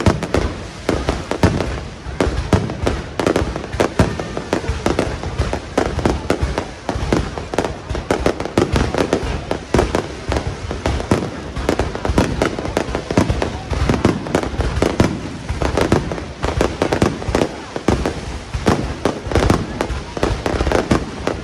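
Fireworks display going off continuously: aerial shells bursting in rapid, overlapping bangs, several a second, with no let-up.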